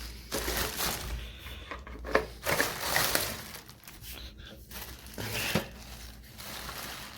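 Crinkling and rustling of packaging as a new welding machine is handled during unboxing, with a few sharp knocks, the clearest about two seconds in and again about five and a half seconds in.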